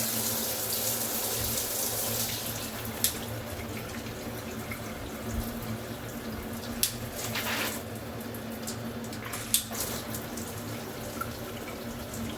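Water spraying from a running Delta 2-in-1 shower head, a steady hiss, with three short sharp clicks spread through it.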